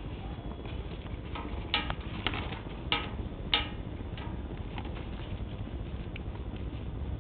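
Bonfire crackling: irregular sharp snaps and pops over a steady low rumble, with a few louder pops around the middle.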